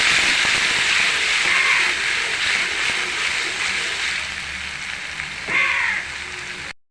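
Spice pastes sizzling as they fry in hot oil, a steady sizzle that slowly eases off. A brief pitched call sounds about five and a half seconds in, and the sound cuts off suddenly just before the end.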